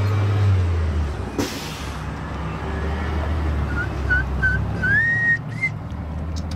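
Low steady rumble of vehicle traffic, with a brief whoosh about a second and a half in. Starting a little past halfway, a run of short high-pitched notes, the last two gliding upward.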